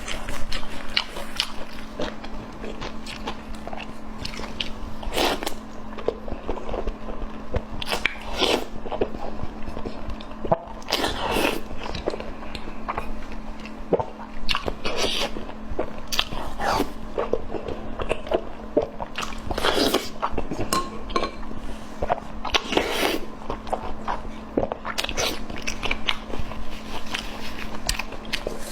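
A person eating close to the microphone: chewing and biting with irregular crunchy, wet clicks. A steady low hum runs underneath.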